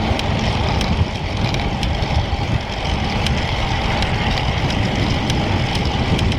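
Wind rushing over the microphone of a moving bicycle's camera, mixed with road noise, with a few faint clicks scattered through it. A headwind is blowing.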